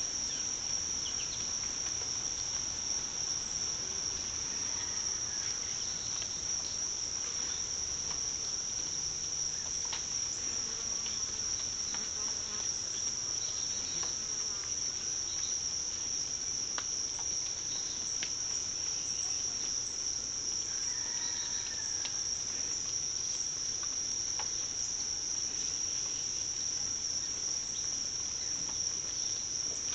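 Insect chorus: a steady, unbroken high-pitched chirring.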